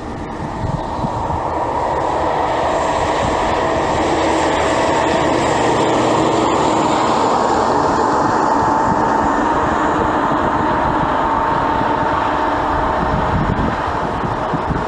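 Loud, steady mechanical running noise with a few steady humming tones through it. It builds over the first couple of seconds and then cuts off abruptly at the end.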